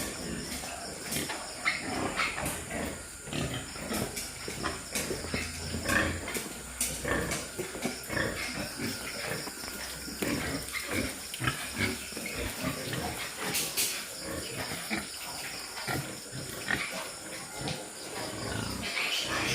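Pigs on a farm making many short, irregular grunting calls that overlap one another.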